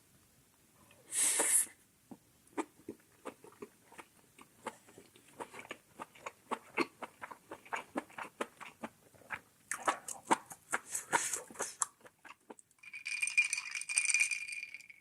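Close-miked eating: wet chewing and mouth smacks, a couple of times a second and busier later on, with a short hiss about a second in and a longer, whistling slurp near the end.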